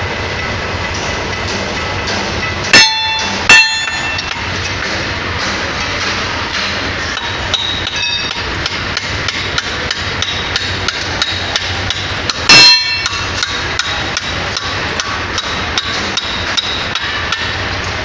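Sledgehammer blows ringing on the steel of a concrete pump's S-valve (rock valve) assembly as it is knocked loose for removal: two loud strikes about three seconds in, half a second apart, and a third near the middle, with many lighter taps in between over a steady low hum.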